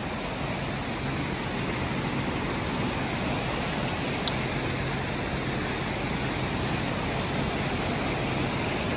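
Snowmelt floodwater rushing down a swollen creek: a steady, even noise of running water.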